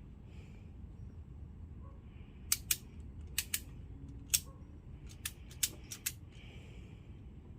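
A run of about ten sharp clicks or snaps, irregularly spaced, from about two and a half to six seconds in, over a steady low rumble.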